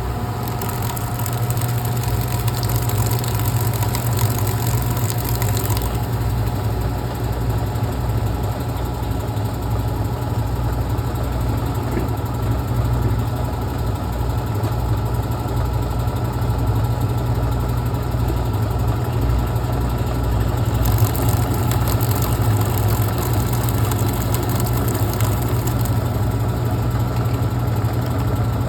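Brastemp Clean washing machine spinning: a steady motor whine over a low hum. The whine settles at a constant pitch right at the start, and a hiss rises over it for the first few seconds and again about 21 seconds in.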